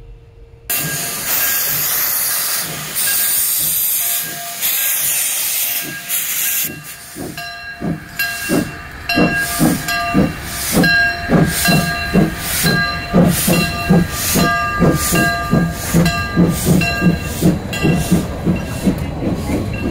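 American Flyer #312 S-gauge steam locomotive model getting under way: a steady hiss for about six seconds, then rhythmic chuffing that speeds up as the engine gathers pace, over a steady mechanical whine.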